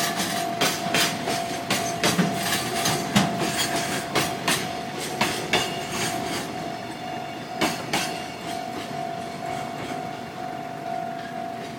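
Freight wagons rolling slowly over a level crossing during shunting, their wheels knocking and clanking over the rail joints in an irregular string that thins out after about eight seconds. Under it the crossing's warning bell keeps up one steady tone, the crossing held closed while the shunting goes on.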